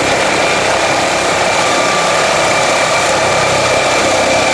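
MD 902 Explorer (NOTAR) helicopter running at full rotor speed and lifting off: a steady, loud turbine whine and rotor noise. A very high whistle on top rises slightly in the first couple of seconds.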